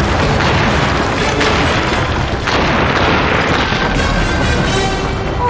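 Cartoon sound effects of a continuous heavy rumbling with booming crashes, under dramatic orchestral score that comes forward near the end.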